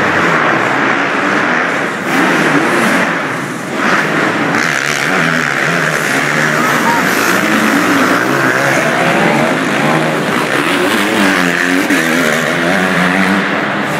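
Several small two-stroke motocross bikes running on a dirt track, their engines revving up and down as the riders accelerate and back off.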